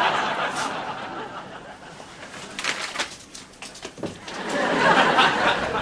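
Studio audience laughing, fading off after the start, with a fresh burst of laughter building about four seconds in.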